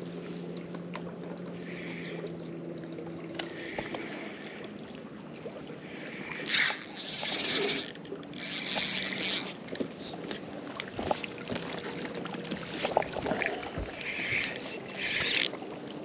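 Fishing boat sounds with no talk. A steady low electric hum, typical of a bow-mounted trolling motor, runs for the first few seconds. From about six seconds in come several loud bursts of rushing noise, like wind or water on the microphone.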